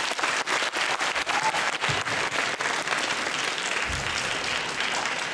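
Audience applauding, many hands clapping steadily, thinning out near the end.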